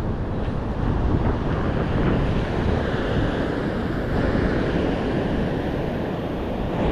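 Storm surf breaking and washing up the beach, with wind buffeting the microphone: a steady, loud rush with no tones in it.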